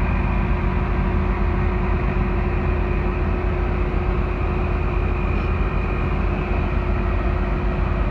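8.3-litre Cummins diesel engine of a Blue Bird school bus idling steadily: a continuous low rumble with a steady hum.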